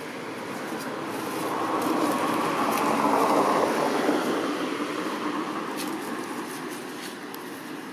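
A vehicle passing by. Its noise swells to a peak about three to four seconds in and then fades away.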